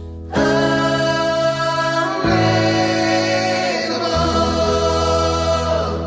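Background music: sung, choir-like held chords that come in suddenly about half a second in, change twice, and begin fading near the end.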